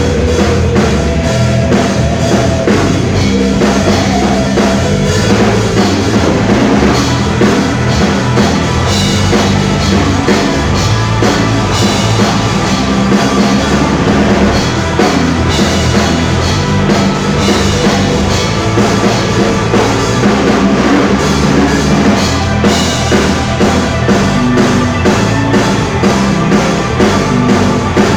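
Pop-rock band playing a song live, a drum kit with kick and snare driving a steady beat under the full band.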